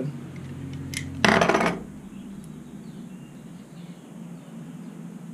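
A single click about a second in, then a brief clatter of small metal clinks, like small nuts and bolts being handled on a workbench.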